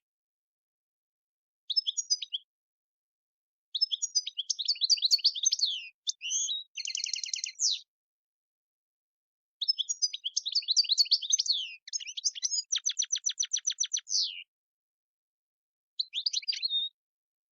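European goldfinch singing: a short twittering phrase, then two longer phrases of quick high notes, each ending in a fast even trill, and a short phrase near the end, with silent gaps between.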